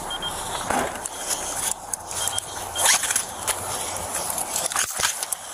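Body-worn camera picking up the wearer's own movement: rustling of clothing and gear against the microphone, footsteps, and several sharp knocks as a rifle is taken out of a police SUV's cargo area and carried off.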